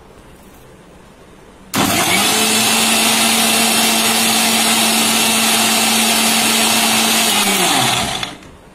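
Electric blender (mixer grinder) switched on about two seconds in, its motor running loud and steady for about six seconds while blending a juice of fruit, milk and banana, then switched off and winding down with a falling pitch near the end.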